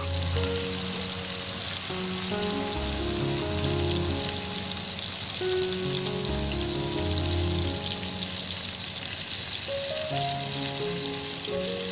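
Food sizzling steadily in a hot frying pan, an even hiss, with soft background music.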